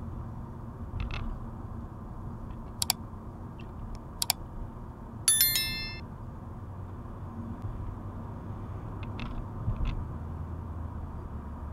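Like-and-subscribe overlay sound effect: two sharp mouse-style clicks about a second and a half apart, then a bright notification-bell ding that rings out for under a second. Steady low road noise from the moving car runs underneath.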